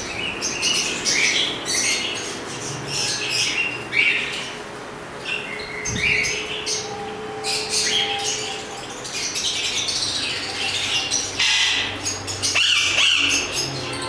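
Caged parakeets calling: many short chirps and squawks, overlapping and following one another every fraction of a second.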